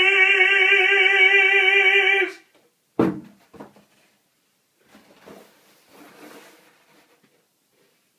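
A man's voice holding one long sung note with vibrato, unaccompanied, which stops about two seconds in. About a second later a single thud, then faint rustling and handling noises.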